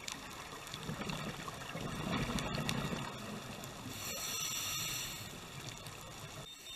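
Scuba diver breathing through a regulator underwater, heard through the camera housing: a low rush of exhaled bubbles burbling past about a second in, then a high hiss of an inhaled breath near the middle, over faint steady crackling.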